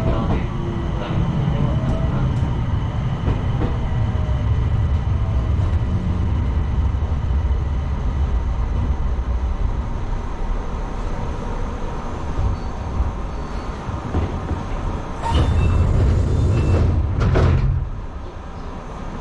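Enshu Railway electric train running into a station and braking to a stop: a steady running rumble with a faint falling motor whine early on. A louder burst of noise comes about three seconds before the end, and then it is quieter as the train stops.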